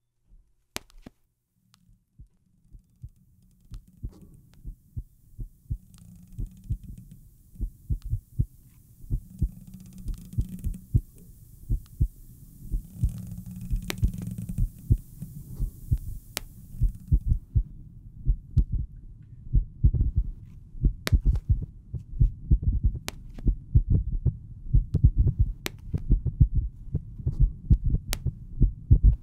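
Heartbeat, heard as low beats that start about two seconds in and grow louder and closer together. A faint hiss runs through the first half, and sharp clicks sound now and then.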